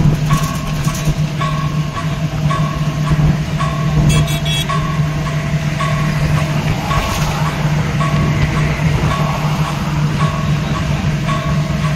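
Steady engine and road drone of a moving vehicle, with a short electronic beep repeating at a steady pace over it.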